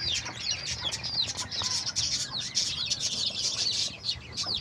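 Country chicken chicks peeping: many short, high, falling peeps overlapping in a continuous chorus.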